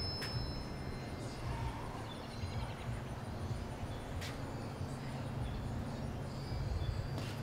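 Open-air ambience: a steady low rumble with faint high chirps scattered throughout, and one sharp tick about four seconds in.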